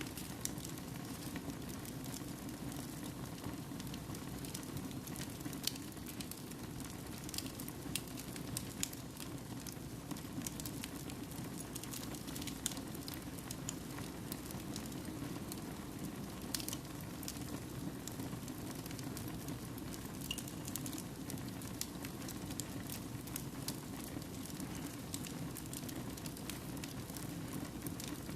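Wood fire burning in a fireplace: a steady low flame rustle with frequent irregular crackles and pops of burning logs.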